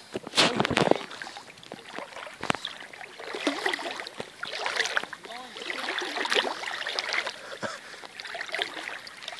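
River water splashing and sloshing irregularly, with a few sharp knocks at the start and one about two and a half seconds in.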